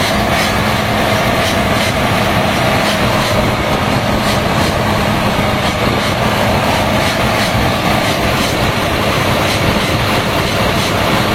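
HB365 excavator's diesel engine running steadily on test after its turbocharger was repaired for a rubbing noise, with a steady hum and a continuous engine and turbo rush.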